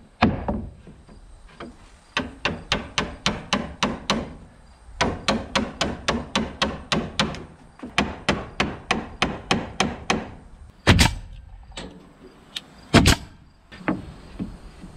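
Claw hammer driving a nail into a wooden filler strip on barn siding: runs of quick light blows, about three a second, then two much louder single impacts about two seconds apart near the end.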